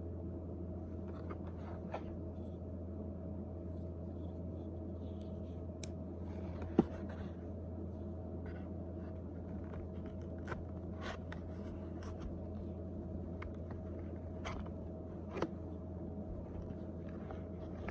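Scattered light clicks and scrapes of a cardboard-and-plastic knife package being handled, over a steady low hum; one sharp click stands out about seven seconds in.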